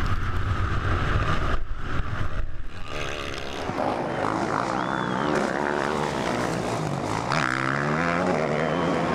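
Motocross bike engines revving hard. They are loud and close for the first second or so, then more distant, with the pitch rising and falling repeatedly as the throttle is worked.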